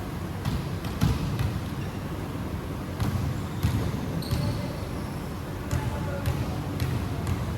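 Basketball bouncing on a hard court, with irregular sharp bangs, and a brief sneaker squeak about four seconds in.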